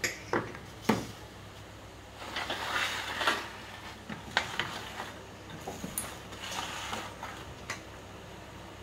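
A few sharp knocks as a cordless drill is set down on a wooden tabletop. Then comes the clatter and rattle of a circuit board in its frame being lifted and turned over, with more light knocks and handling noise.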